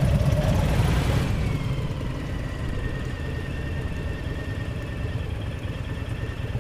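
V-twin cruiser motorcycle engine pulling away from a stop, louder for the first second or so, then running steadily at low speed.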